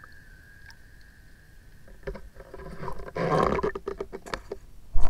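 Underwater camera housing being knocked and rubbed: a faint steady high whine, then from about two seconds in a run of sharp clicks and knocks with a brief scraping rush, ending in one loud knock.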